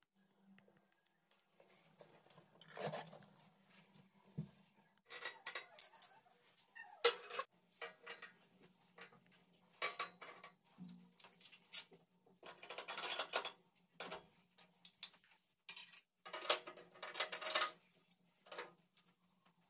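Irregular handling noises on a stainless-steel gas hob: rubbing strokes lasting a second or so, mixed with light metallic clinks, over a faint steady hum.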